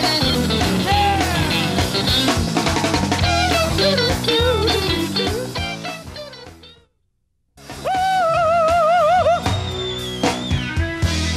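Live rock band with electric guitars and drums, the lead guitar playing bending, gliding lines. The music fades out about six seconds in and drops to dead silence for under a second. Then music starts again with a loud held note that wavers widely in pitch.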